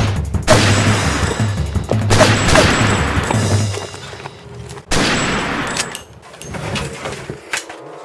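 A gunfight sound effect: a rapid run of gunshots over action music with a pulsing bass beat. The shooting thins out about four seconds in, and a single sudden loud bang near the five-second mark fades away.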